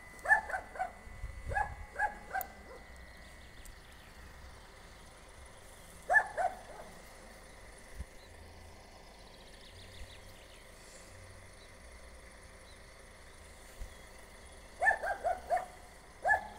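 A dog barking in short runs of two to four barks, three times, with long pauses between.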